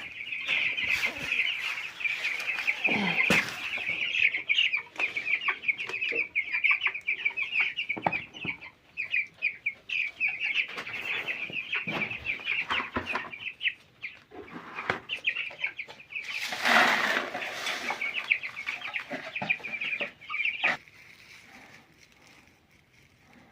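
A flock of broiler chickens peeping and clucking in a dense, continuous chatter of rapid high calls. Louder rustling bursts come about three seconds in and again around seventeen seconds. The calls stop abruptly a few seconds before the end.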